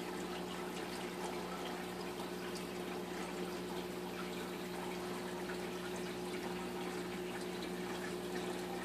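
Reef aquarium's water moving steadily, a continuous trickling and splashing of circulating water, over a steady low hum.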